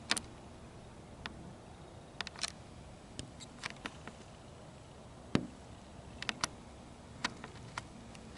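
Scattered light clicks and taps over a faint steady hum, about a dozen in all and irregularly spaced, the loudest about five and a half seconds in.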